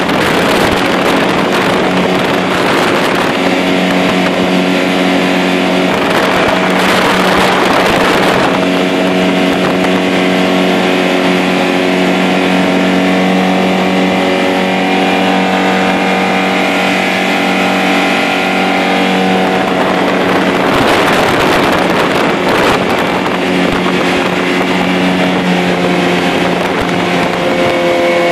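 Motorboat engine running steadily at speed, with water rushing and splashing off the hull; twice the rushing of spray and wind briefly swells over the engine.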